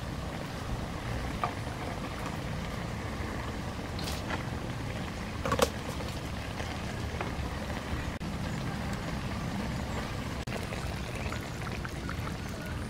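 A large metal wok of shellfish steaming and simmering over an outdoor cooking fire, a steady low rumbling hiss. A few light clinks of a metal spoon, the clearest about halfway through, and near the end coconut milk is poured into the wok.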